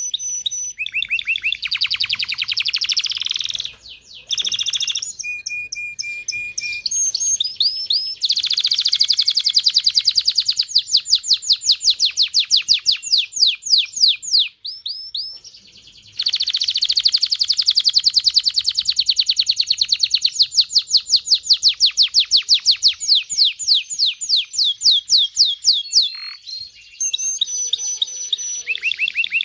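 Domestic canary singing: long, fast trills of rapidly repeated notes, with short whistled notes between phrases. The song pauses briefly about 4 seconds in and again about 15 seconds in.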